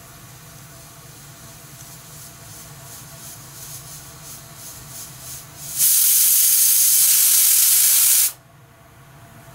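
Hawkins pressure cooker's pressure regulator weight sputtering in short puffs of steam that come faster and faster, then lifting to let out a loud, steady hiss of steam for about two and a half seconds before cutting off suddenly. This is the cooker venting at full operating pressure.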